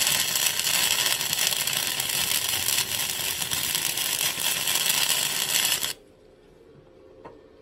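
Electric arc welder laying a bead on thick steel with the power turned up: a loud, steady crackling hiss that cuts off suddenly about six seconds in as the arc is broken.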